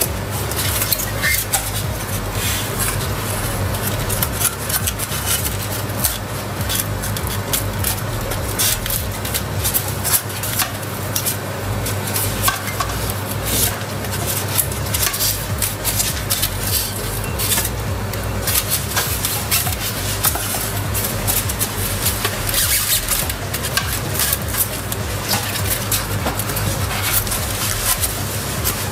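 Expanded polystyrene foam insulation squeaking and crackling as gloved hands rub and pry it off a water heater's tank. Many short scratchy clicks sit over a steady low hum.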